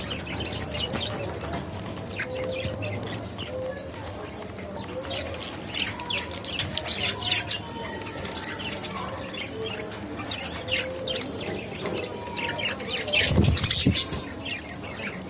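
Budgerigars chirping and chattering while eating seed, with many small quick clicks of husks being cracked. A louder scuffle of noise about thirteen seconds in.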